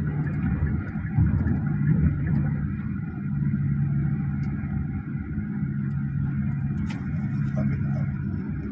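Steady road and engine rumble of a Hyundai Staria van, heard from inside the cabin while it drives along, with a low hum.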